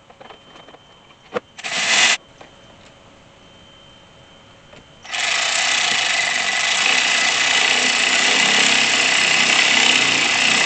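Power driver spinning a socket on a heater-hose clamp screw: one short burst about two seconds in, then a steady run of about five seconds.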